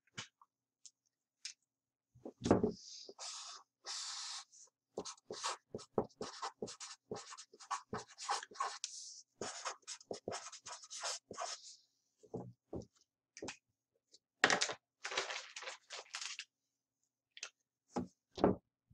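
Felt-tip marker drawing and writing on paper: a long run of short scratching strokes, broken by a few pauses, with a few dull knocks among them.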